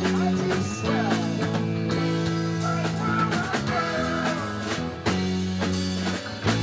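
Live rock band playing an instrumental jam: two electric guitars, electric bass, keyboard and a drum kit.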